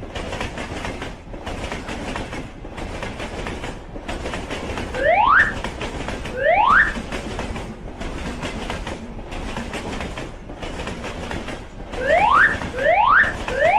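Train passing, a steady rumble with a regular beat of short dips about every second and a quarter. Over it comes a rising whooping tone, twice in the middle and then four times in quick succession near the end.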